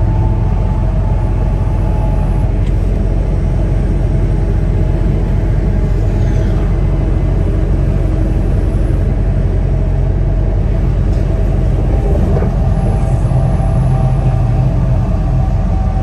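Peterbilt 579 semi tractor driving along: a steady engine and road rumble with no change through the stretch.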